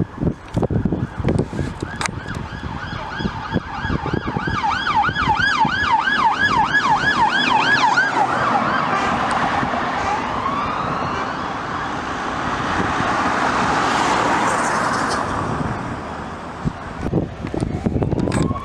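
Police car siren on its fast yelp, a whooping rise and fall about three times a second. It then changes to slower sweeps as the car drives past with its engine and tyre noise. Wind buffets the microphone at the start, and another siren begins rising right at the end.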